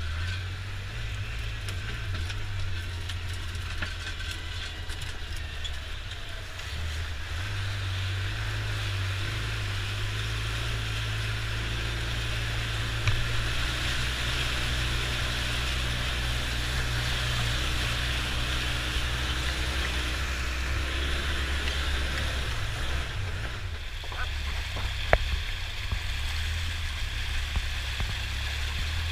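Polaris Ranger 6x6 utility vehicle's engine running under load while driving, its pitch stepping up and down, with water rushing and splashing around the vehicle as it fords a river and then churns up a creek. One sharp knock near the end.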